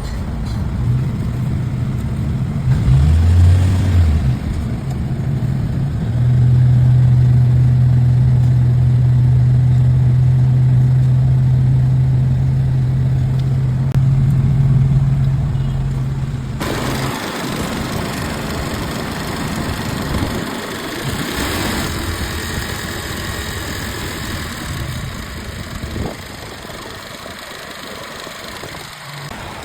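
Car engine idling with a steady low hum. About seventeen seconds in the hum drops away and a broader hiss takes over.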